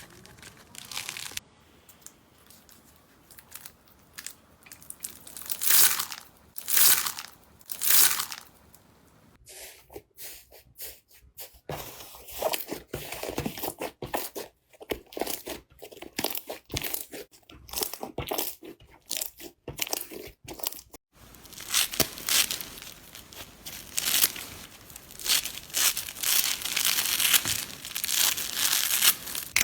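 Slime being handled by hand, squeezed, stretched and pulled apart, giving a run of crackling, sticky tearing noises. There are three louder pulls in the first part, and the texture of the sound changes abruptly twice as one clip gives way to the next.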